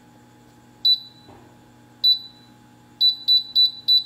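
Gourmia digital air fryer's control panel beeping as its buttons are pressed to set the cooking temperature down from 400 to 350 °F: a single short high beep about a second in, another about two seconds in, then four quick beeps near the end.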